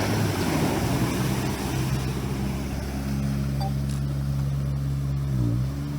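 All-terrain vehicle's engine running steadily as it drives through water to wash off mud, with a rush of splashing water in the first second. About five and a half seconds in, the engine pitch dips briefly and picks up again.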